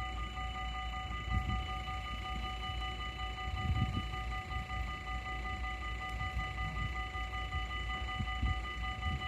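Warning bells of a Dutch automatic half-barrier level crossing ringing steadily at one unchanging pitch while the red lights flash, over a low rumble of wind on the microphone.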